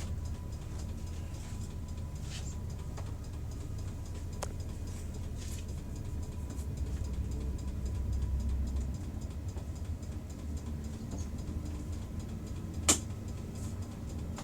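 Bus engine idling with a steady low rumble that swells a little midway. Faint scattered clicks run through it, and one sharp click comes near the end.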